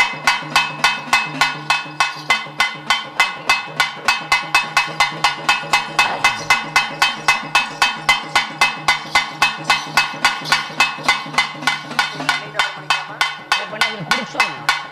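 Cylindrical folk drums with metal shells beaten in a steady, fast beat of about four strokes a second, each stroke ringing with a metallic tone, over a steady low hum.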